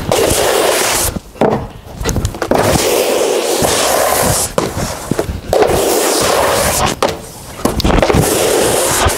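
Snowboard sliding over plastic Proslope dry-slope matting: a loud, rough, crackling scrape in several stretches, broken by a few brief quiet gaps.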